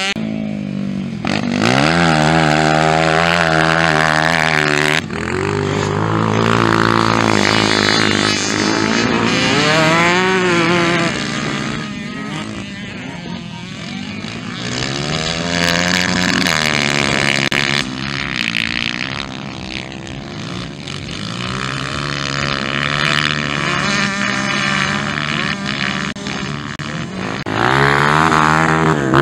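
Motocross dirt bike engines revving up and dropping back again and again as riders accelerate and ease off around the dirt track, with more than one bike heard at times.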